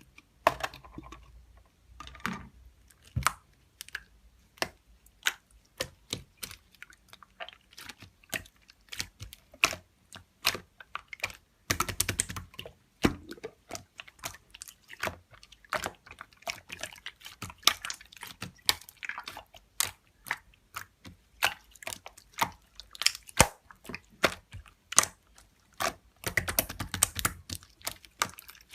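Clear slime being stretched, pressed and folded by hand, giving quick irregular sticky clicks and pops with short squelches.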